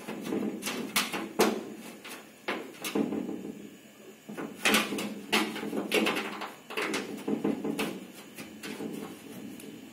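Corrugated metal sheeting rattling and knocking in irregular clusters as a kitten paws and bats at its bottom edge.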